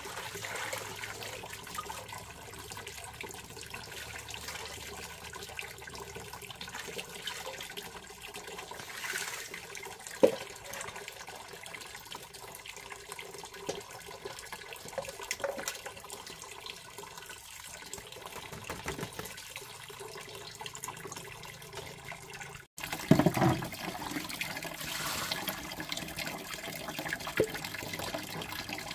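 Stream water trickling and splashing, with a brief louder splash about ten seconds in. The sound breaks off abruptly about three-quarters of the way through, and a burst of louder splashing follows.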